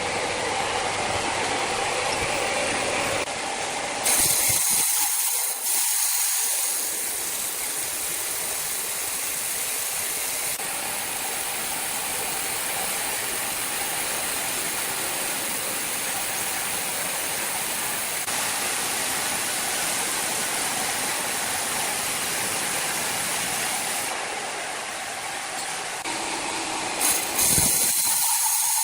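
Sawmill machinery running, a loud steady mechanical noise that changes character abruptly several times.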